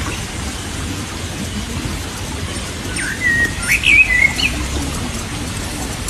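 Songbird calls, a short run of quick chirps and whistles about three seconds in, over a steady outdoor background hiss.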